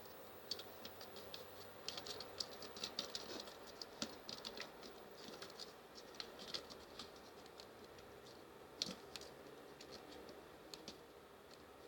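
A cat's claws scratching and clicking on a scratching post as she plays with it: a quick run of small scratches and clicks, dense for the first several seconds, then sparser.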